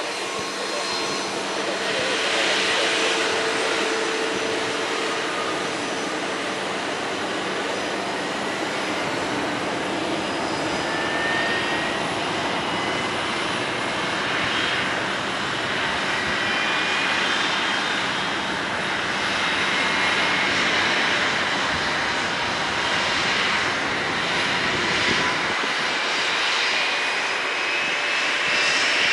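Convair CV-340's twin Pratt & Whitney R-2800 radial piston engines running at taxi power, a steady propeller drone.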